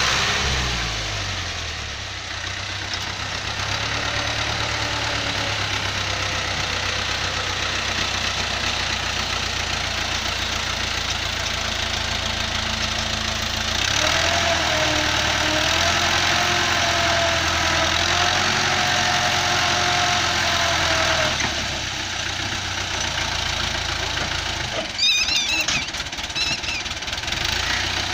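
FIAT 640 tractor's diesel engine running steadily under load, pulling a cultivator through the soil. Its pitch dips during the first second and shifts again a couple of times, with a few short clicks near the end.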